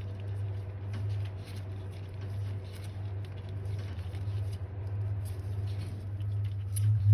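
Light, irregular rustling and small clicks of a wire and plastic conduit being handled, over a steady low hum.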